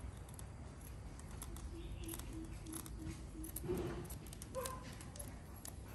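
Large scissors snipping through thin cotton fabric in a string of short cuts.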